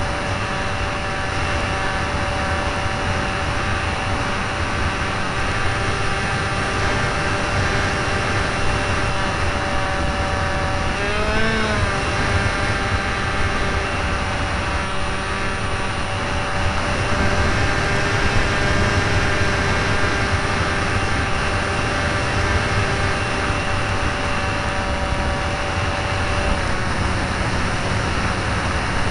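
Flying-wing model airplane's motor and propeller running steadily in flight, heard from the onboard keychain camera, with a lot of rushing air noise. The motor's pitch briefly wavers about eleven seconds in.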